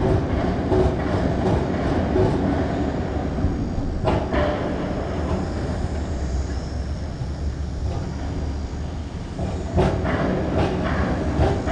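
Steady low rumble of a passing heavy vehicle, with a few sharp clacks, the clearest about four seconds in and near the end.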